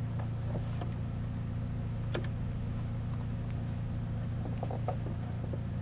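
Electric sewing machine running steadily, zigzag-stitching over a conductive thread fed down the ribbon's centre tunnel, with a few light clicks.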